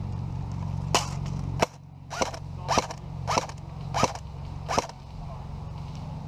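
Airsoft pistol firing single shots: seven sharp pops, about one every two-thirds of a second, then it stops.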